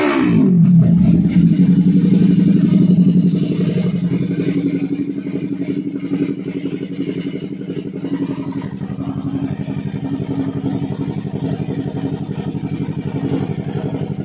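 Yamaha YZF-R3's parallel-twin engine through an Akrapovic full-system exhaust, its revs falling off sharply as the throttle is closed at the start, then settling into a steady idle with an even exhaust pulse.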